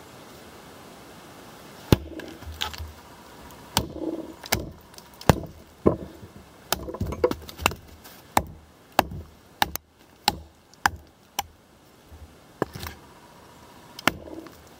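Condor Pack Golok chopper striking a log again and again, a quick run of sharp chops, about one or two a second, starting about two seconds in and pausing briefly near the end. The blade is biting deep and splitting the wood.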